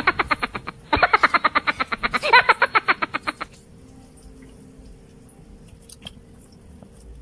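Cartoonish laughing sound effect, a rapid run of high "ha-ha" pulses in two bursts, cutting off about halfway through. Then faint splashing and dripping as hands are washed in a basin of water.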